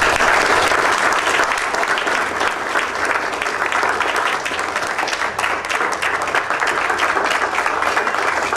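Audience applauding: sustained, dense clapping from a roomful of people that starts suddenly and holds steady.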